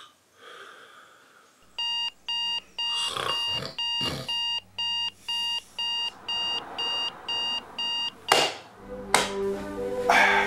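Digital alarm clock beeping, about two high beeps a second, for several seconds. A loud thump follows and the beeping stops, and music starts near the end.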